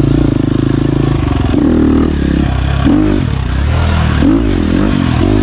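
Husqvarna 250 dirt bike engine running under load on a climbing trail, its pitch rising and falling several times with the throttle.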